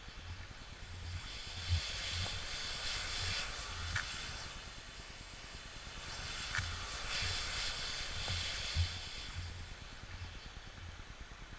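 Burning safety matches hissing as they flare, in two swells a few seconds apart, with a couple of sharp crackles.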